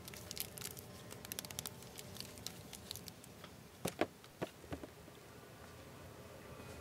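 Faint crinkling and light clicking of a plastic-wrapped wooden puzzle being handled and put back on a store shelf. A few louder taps come about four seconds in.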